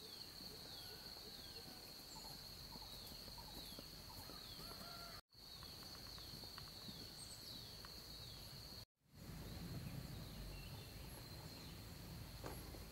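Faint rural outdoor ambience: a steady high insect drone with a bird repeating short falling chirps. The sound drops out briefly twice, about five and nine seconds in.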